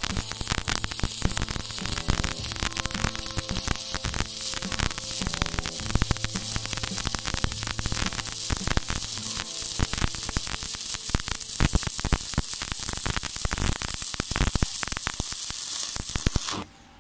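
Stick-welding arc from an E6013 rod (2.6 mm, 110 amps) on thin square steel tube, crackling and sizzling steadily with dense spatter pops. The arc breaks off suddenly near the end.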